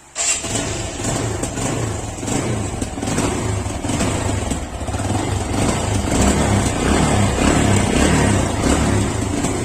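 Motorcycle engine starting right at the outset and then running steadily, a little louder later on. It is heard just after repair of a piston that a loose fragment of broken iron had dented, to check that the bad noise is gone.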